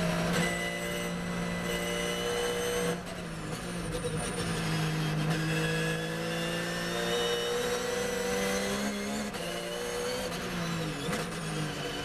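Porsche 911 GT3 R's flat-six race engine heard from inside the cockpit, its pitch sagging as the car slows from about 195 to 120 km/h, then climbing under acceleration, with a sudden drop at a gearshift about nine seconds in.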